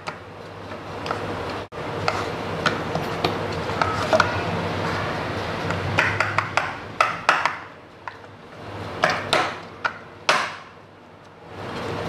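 A hand pressing and working a sticky lump of cooked sugar syrup in a non-stick frying pan: soft rubbing and squishing, with scattered sharp taps and knocks of fingers and pan, most of them in the second half.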